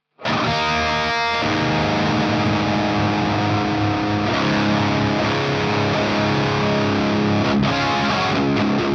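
Electric guitar, a home-built replica of the 1978 Frankenstrat, played through heavy distortion. It comes in abruptly just after the start and keeps going loud and dense, with chords and riffing that change every second or so.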